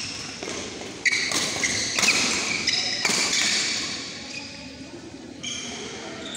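Badminton rally in an echoing indoor hall: rackets striking the shuttlecock about once a second, with high-pitched shoe squeaks on the court.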